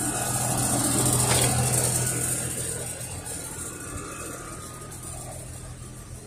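A car driving past: engine and tyre noise that swells over the first couple of seconds and then slowly fades away.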